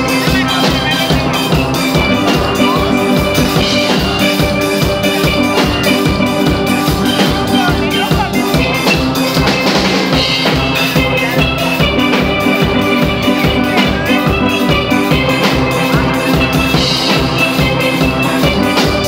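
Live band music: a drum kit keeps a steady beat under sustained pitched melody instruments, played loud and without a break.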